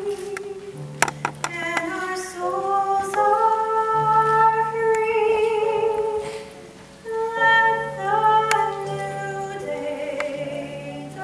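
Mixed choir singing sustained chords in harmony. A brief drop between phrases comes just past the middle, and a few sharp clicks are heard about a second in.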